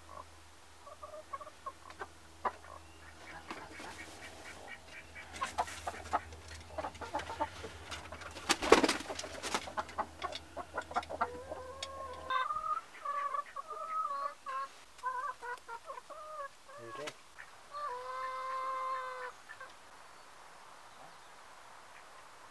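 Domestic hens clucking in a nest box. A stretch of rapid clicks comes first, then a string of short pitched clucks, and one long drawn-out call near the end.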